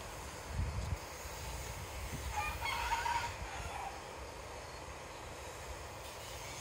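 A rooster crowing once, about two and a half seconds in, a pitched call lasting about a second and a half. A short low rumble sits under the start.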